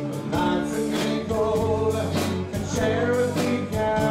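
Live country-rock cover band playing, with a steady drum beat under bass and electric guitar.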